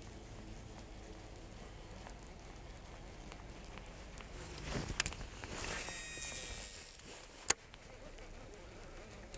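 Quiet outdoor background on the water. About halfway through there is a brief rustling swell with a short falling whine, and a couple of seconds later a single sharp click.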